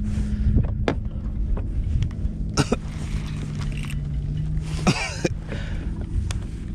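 A few short, sharp knocks and clicks of gear on a kayak, and a brief cough-like sound from the angler about five seconds in. Underneath runs a steady low rumble with a faint hum.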